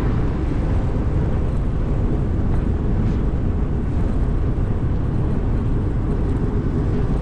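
Steady low rumble of wind buffeting the microphone of a camera mounted on an e-bike being ridden along a trail.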